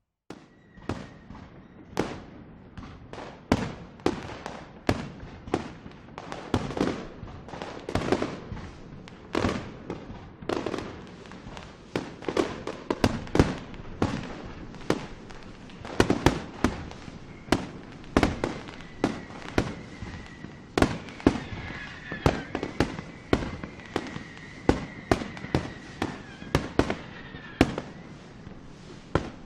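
Fireworks going off: irregular sharp bangs, about one or two a second, over continuous crackling, starting abruptly after a moment of silence.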